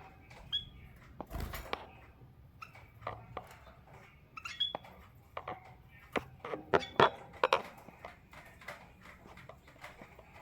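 Small cage birds, a female canary and a male white-headed munia, moving about a cage: irregular light taps and clicks of hopping on perches and pecking, with a couple of short high chirps. The taps come thickest about two-thirds of the way through.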